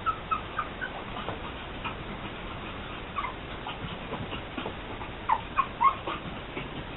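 Pug puppy whimpering in short, high squeaks: several in the first second, then a louder run of three about five and a half seconds in.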